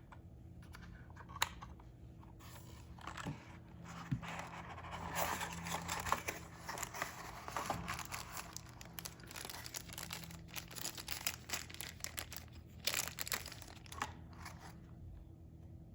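Packaging being handled, crinkling and rustling with scattered sharp clicks and knocks, busiest through the middle and tailing off near the end.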